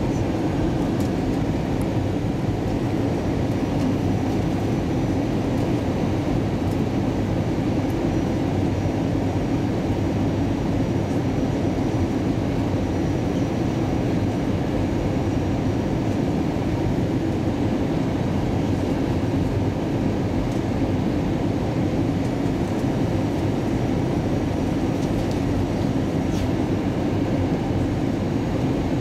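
Airbus A320 cabin noise during descent, heard from inside the passenger cabin: a steady, even rumble of engines and rushing air, heaviest in the low range.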